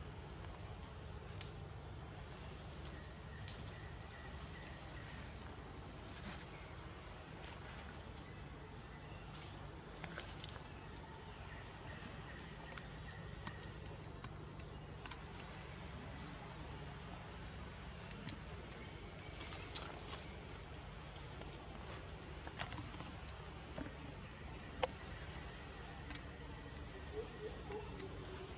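Steady high-pitched insect drone, an unbroken whine on two high pitches, with a few faint clicks scattered through it.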